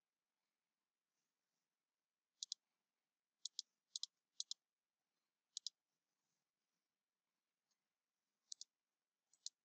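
Computer mouse clicks: about seven short, sharp double clicks, each a button press and release, spread irregularly with near silence between.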